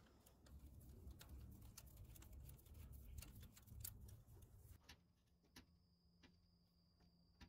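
Near silence: faint scattered clicks over a low hum, the clicks thinning out about five seconds in.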